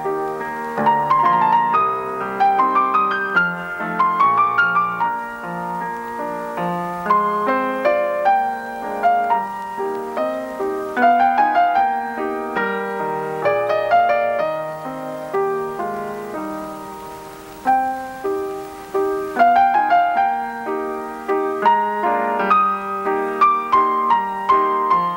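Piano music: a flowing melody of struck notes over chords, easing briefly about two-thirds of the way through before picking up again.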